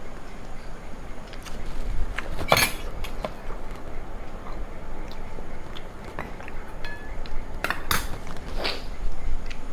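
Cutlery clinking against a plate while eating: a sharp clink about two and a half seconds in, then a cluster of clinks around eight seconds in.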